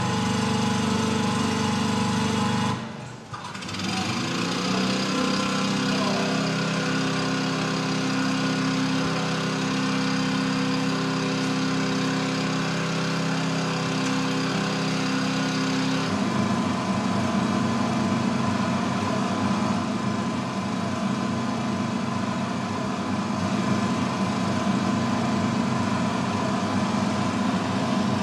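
Small portable petrol generators running with a steady engine drone. About three seconds in the sound dips briefly, then an engine starts up, its pitch rising and settling; around sixteen seconds in it changes abruptly to a different generator running.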